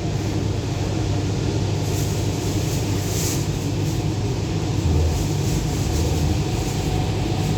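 Cabin running noise of an MTR Rotem EMU train under way: a steady low rumble of wheels on rails and traction equipment, with brief hissing swells about two and three seconds in.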